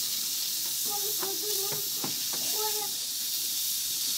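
Steady hiss of steam escaping from a pressure cooker's valve on a small wood stove, with a few sharp crackles from the wood fire in the middle.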